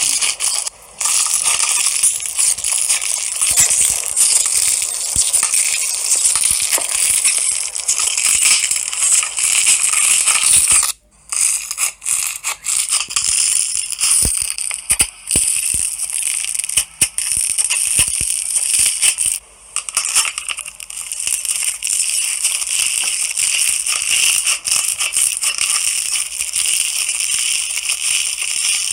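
Slime being squished and worked, giving a dense, continuous run of crackling and clicking, broken by brief pauses about a second in, about eleven seconds in and near twenty seconds in.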